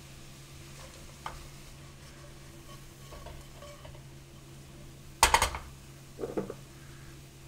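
Diced Spam sizzling faintly in oil in a nonstick pan while a spatula stirs and scoops the cubes, with a small tap about a second in, a loud clatter of the spatula against the pan a little after five seconds, and a smaller clatter about a second later.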